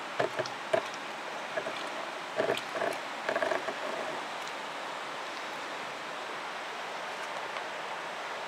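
Water gurgling and splashing through a siphon hose worked by a large kerosene pump as it sucks fish droppings off the bottom of a medaka tank, a run of short gurgles and knocks that stops about four seconds in, over a steady hiss.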